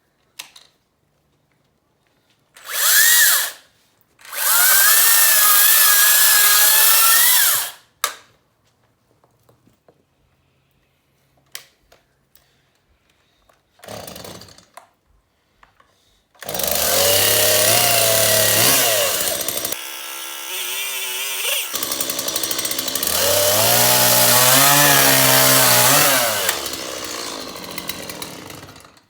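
Chainsaws running. First comes a short high-pitched whine, then a steady one of about three seconds. After a pause, a two-stroke petrol chainsaw revs hard, falls back for about two seconds, and revs up again for several seconds.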